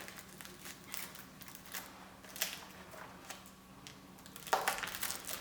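Faint handling sounds of a lace frontal and wig clips being positioned on a mannequin head: scattered soft clicks and rustles, with a louder rustle about four and a half seconds in, over a faint steady hum.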